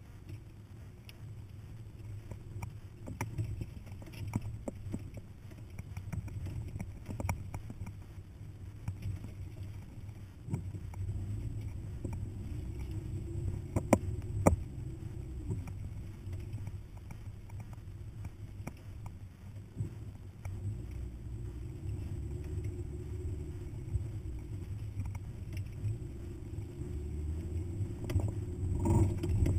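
Hummer SUV driving slowly over a rough desert dirt trail: a steady low engine drone with scattered knocks and rattles as it bumps over the uneven ground, the sharpest knock about halfway through.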